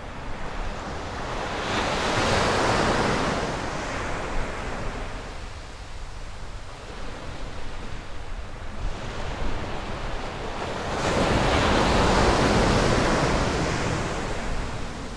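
Surf breaking and washing up a sandy beach, two waves swelling up and fading about ten seconds apart, with wind rumbling on the microphone.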